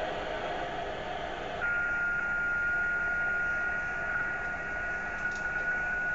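Amateur radio receiver tuned to a satellite transponder passband, giving steady hiss. About one and a half seconds in, the hiss narrows and a steady single-pitch whistle appears and holds: a carrier heard in the receiver audio, with no satellite signal copied.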